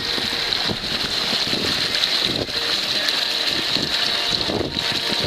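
Water rushing and splashing past the hull and stern of a small sailboat under way, a steady hiss, with wind buffeting the microphone.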